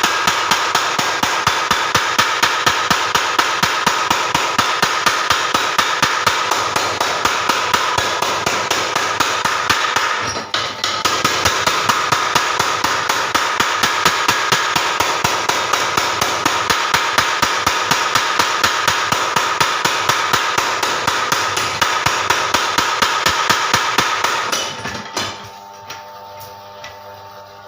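Blacksmith's mechanical power hammer (forging hammer) striking in a rapid, even rhythm, several blows a second. It falters briefly about ten seconds in, then stops near the end, leaving a fainter steady hum.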